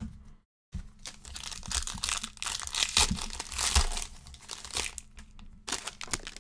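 Foil wrapper of a trading-card pack crinkling and tearing as hands rip it open: a continuous rustle for about five seconds, then one more short crackle near the end.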